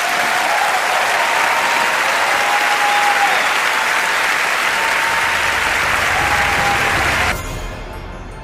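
A large audience applauding, a dense, steady clapping. It cuts off abruptly about seven seconds in, and soft, low, pulsing music takes over.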